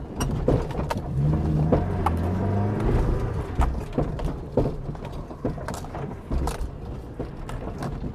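A small 4x4's engine pulling under load, its pitch rising over about a second and a half and then falling away, with repeated sharp clunks and rattles from the chassis as it crawls over a dirt ledge. These are the loud chassis noises that the owner says will need repair.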